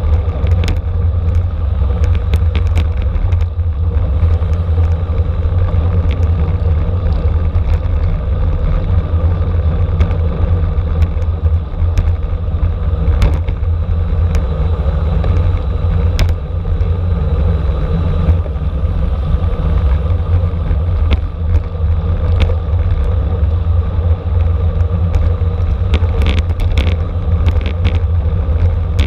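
Steady wind rumble and road noise from a road bicycle ridden at race speed, with scattered sharp clicks and knocks.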